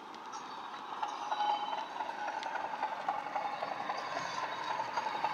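Class 37 diesel engine sound from a Bachmann Class 37 model locomotive's DCC sound decoder, played through the model's built-in speaker. It grows louder from about a second in as the model approaches.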